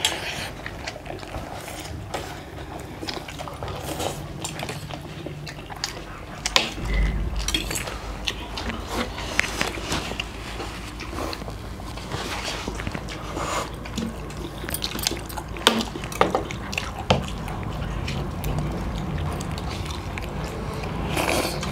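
Close-up eating sounds: people chewing and slurping spicy noodles, with forks and spoons clicking against steel plates.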